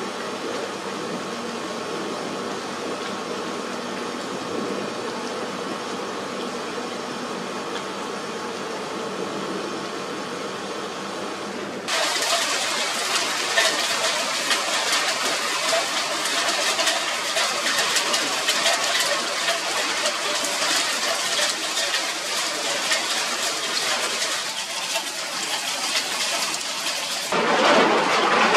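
A steady hiss with a faint hum gives way abruptly, about twelve seconds in, to hail falling: a loud, dense patter of countless small impacts. Near the end it cuts to a louder, fuller rush of heavy rain.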